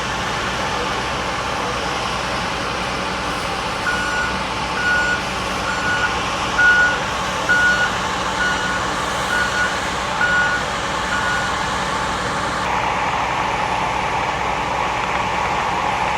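A truck's reversing alarm beeping at an even pace, about once a second, nine times, over the steady running of a vehicle engine.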